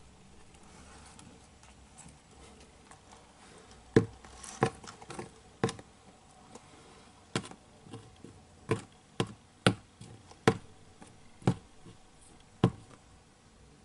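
Metal feeding tweezers tapping on the floor of a clear plastic tub, about a dozen sharp, separate clicks starting about four seconds in, spaced irregularly at roughly one a second.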